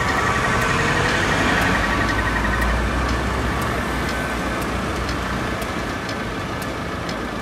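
Road traffic with a vehicle passing close by, a low rumble at its loudest about two seconds in. A police car's siren tone sounds faintly at first and fades out about three seconds in, as the patrol car moves away.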